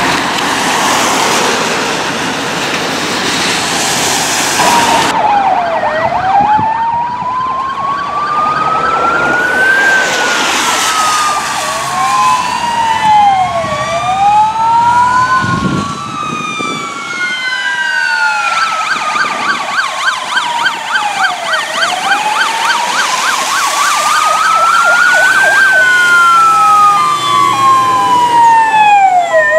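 Fire engine sirens on a convoy passing on a wet road: one siren wails slowly up and down, rising for about four seconds and falling for four, with a second, faster warbling siren over it at times. The first five seconds are the engine and tyre noise of a fire truck driving past before the sirens begin.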